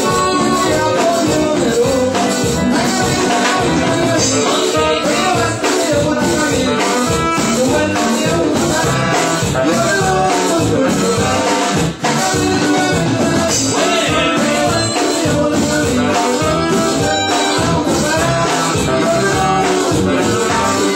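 Live band playing loud Latin dance music on keyboards, drums and percussion, with a singer over a steady beat.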